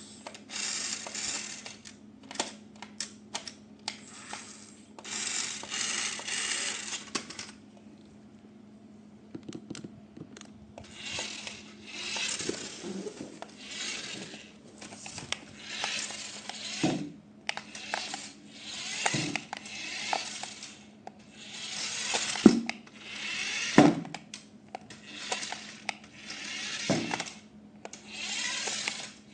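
Packaging being handled during a toy unboxing: repeated short bursts of rustling and crinkling, with scattered clicks and knocks, over a faint steady hum.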